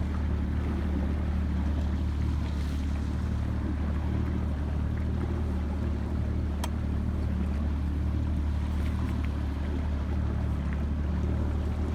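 Boat engine running steadily, a low even hum heard from on board, with a single sharp click about halfway through.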